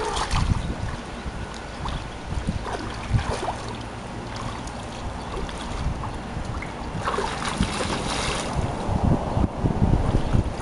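Wind buffeting the microphone, with irregular low rumbling gusts that grow stronger near the end.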